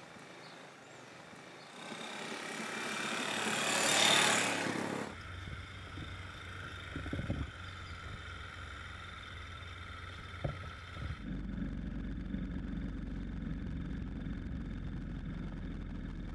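A vehicle passing close, its noise swelling to a loud peak about four seconds in, followed by a steady low hum with a couple of short knocks.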